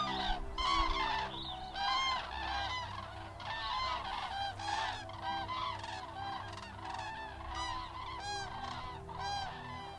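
A flock of common cranes calling in flight: many birds' honking calls overlapping, one after another, in a dense chorus.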